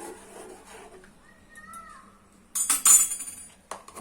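A metal spoon clinking and rattling against a steel pot or bowl, a quick cluster of sharp metallic clinks about two and a half seconds in.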